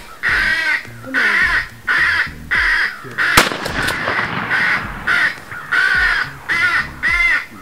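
Crow caws repeated in a steady, even run, nearly two a second, with a brief sharp clatter about three and a half seconds in.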